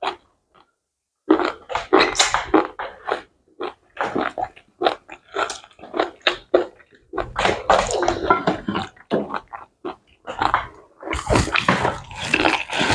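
Wet, smacking eating sounds: people chewing and swallowing mouthfuls of pounded yam with slimy ogbono soup, in quick irregular strokes after a short pause near the start.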